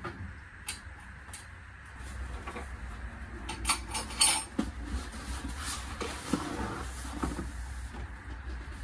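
Handling noises: a few light clicks of metal hinge hardware, then cardboard packaging and an Ikea cabinet door being shifted and lifted, with a cluster of knocks and scrapes about four seconds in and scattered knocks after.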